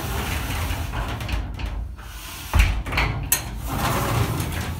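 Glass sliding shower door being pulled shut along its track, an uneven sliding noise with a loud knock a little over halfway through and a sharp click just after.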